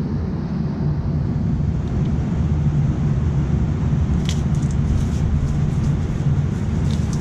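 Gas furnace running on its test cycle: a steady low rumble of the blower and burners, with a few light clicks and taps from about four seconds in.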